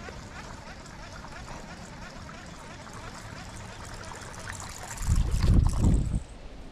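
Faint lapping water, then a loud splash at the water's surface about five seconds in, lasting about a second.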